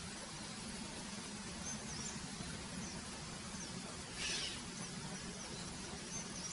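Quiet background ambience: a steady low hum and hiss, with a few faint short high chirps and a brief hissing rustle about four seconds in.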